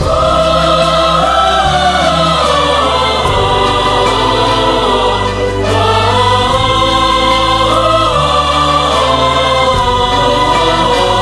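A vocal ensemble singing a Vietnamese revolutionary song in unison-style choral parts, with a short break in the phrase about five and a half seconds in.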